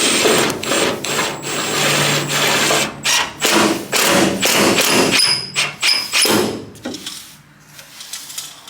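Power drill working on the aluminium bed panel: it runs steadily with a high whine for about three seconds, then in several short bursts, and stops about seven seconds in.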